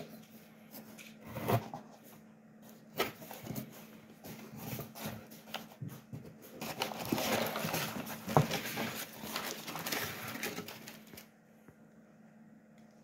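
Unpacking a cardboard shipping box by hand: sharp knocks and taps on the cardboard about one and a half and three seconds in, then a stretch of crinkling and rustling from the kraft paper packing and the plastic wrap around the product box, fading out near the end. A faint steady hum lies underneath.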